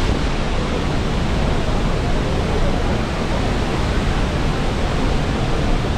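Horseshoe Falls at Niagara, heard up close: the falling water makes a loud, steady rushing noise.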